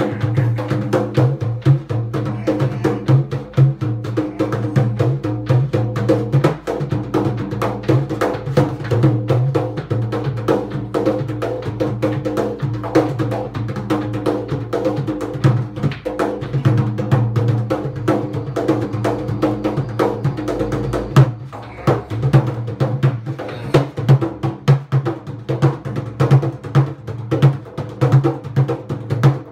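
Haitian drum played solo in a fast, unbroken rhythm: a dense stream of sharp strokes over the drum's deep ringing tone.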